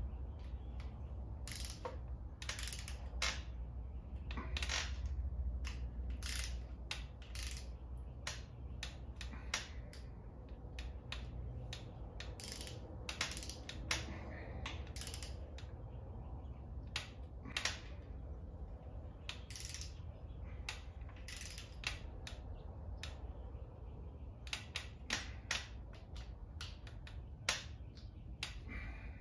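Hand ratchet wrench clicking in irregular runs as bolts are tightened on the front of a 6.1 Hemi engine, over a steady low hum.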